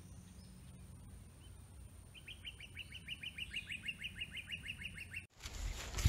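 A small wild songbird sings a fast, even trill of about twenty short high chirps, around six a second, starting about two seconds in, over a faint steady high tone. Shortly before the end the sound cuts abruptly to louder low rustling.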